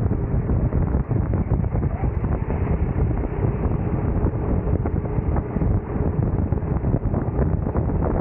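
Racing kart's engine running at speed, heard from onboard with heavy wind rumble on the microphone.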